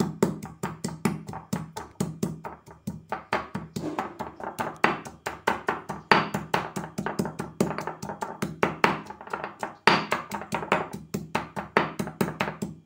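Pestle pounding chopped ginger in a mortar: quick, steady strikes at about five a second, with a brief pause about ten seconds in.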